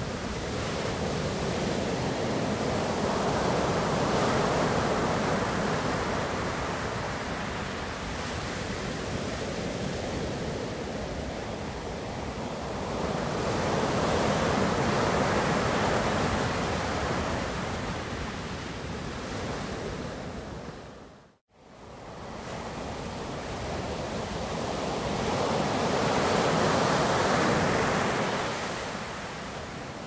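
Ocean waves washing in, a steady rush that swells and eases about every eleven seconds. The sound dips out for a split second about two-thirds of the way through, then comes back.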